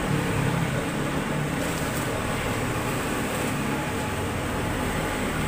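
Small electric drum coffee roaster running, its motor and fans making a steady hum.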